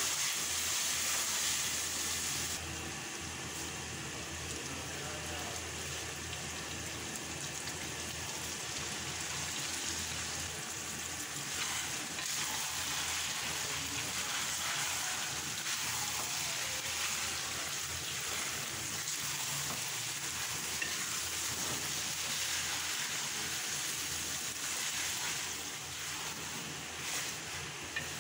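Minced mutton and bitter gourd slices sizzling as they fry in a steel wok, with a wooden spatula stirring and scraping through them. The hiss drops slightly about two and a half seconds in.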